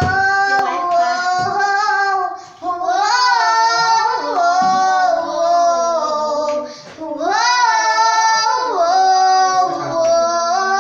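Young girls singing unaccompanied in long, held phrases with pitch slides, breaking briefly for breath twice.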